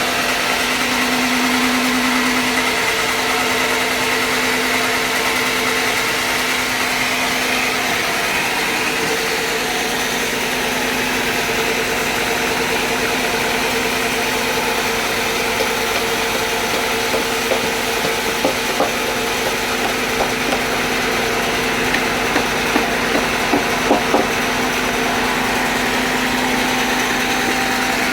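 Sawmill engine running steadily at a constant speed, with a run of short, sharp knocks in the second half.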